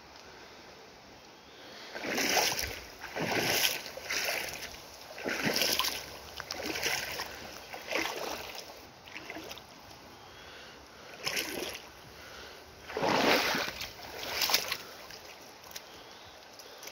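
Footsteps splashing and sloshing through shallow river water, a splash roughly every second, with a short pause about midway before a few more steps.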